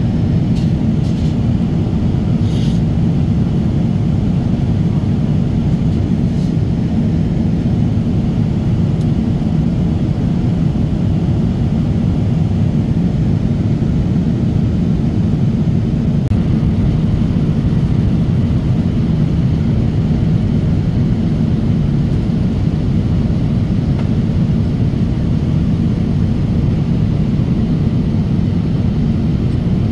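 Steady cabin noise of a jet airliner in flight: a deep, even rumble that does not change, with a few faint clicks in the first seconds.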